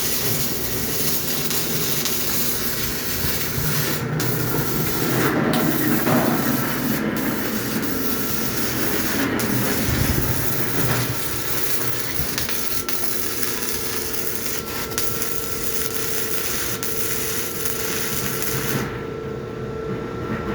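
Arc welding on an 8-inch steel pipe: the welding arc gives a steady, loud hiss. It cuts off about 19 seconds in, leaving a steady machine hum.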